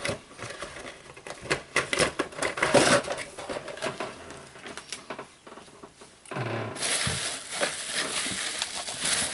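Hands handling packaging and small miniatures: a run of clicks and taps, then a steady crinkling rustle from about seven seconds in.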